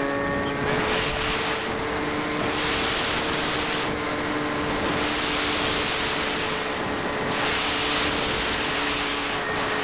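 Electric motor and propeller of an Ares Gamma Pro RC float plane running at a steady high whine, heard from on board the plane, over a loud rush of air.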